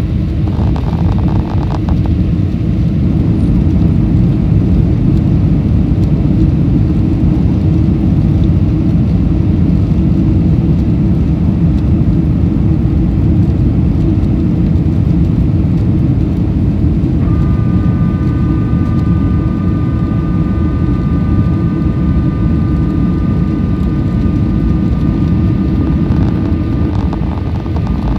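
Steady, loud cabin rumble of a Boeing 747-400 powered by Pratt & Whitney PW4056 engines, heard from inside the passenger cabin. Partway through, a steady high engine whine joins the rumble and holds.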